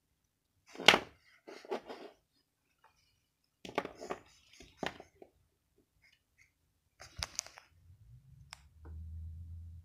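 Knocks and clicks from a small plastic toy being handled and set down on a desk ledge. The loudest is a sharp knock about a second in, and a low rumble comes in near the end.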